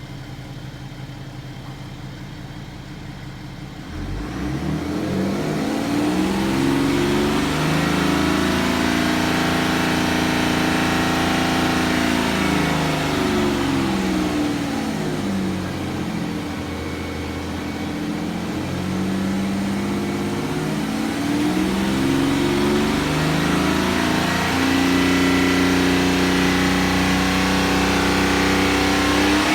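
BMW N57D30 3.0-litre straight-six turbodiesel running quietly at first, then revved up about four seconds in and held at raised revs, easing off and rising again twice. Held up in revs, it makes a tapping, misfire-like sound that the owner takes for a misfire but says may be this engine's normal sound, only louder.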